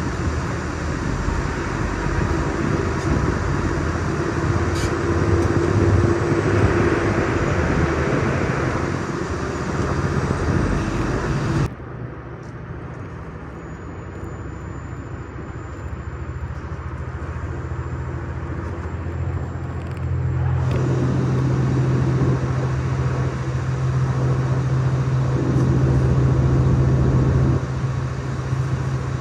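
JR Hokkaido diesel limited express train running, heard from on board: steady rumble and rush of wheels on rail. About twelve seconds in, the higher hiss drops away abruptly. About twenty seconds in, a strong steady low diesel engine drone comes up and holds as the engine powers.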